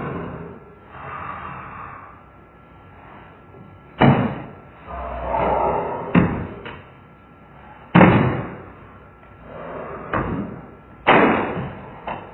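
Slowed-down blows of a computer keyboard being slammed and pounded. There are several hard, deep-sounding slams a second or two apart, each with a drawn-out smeared tail.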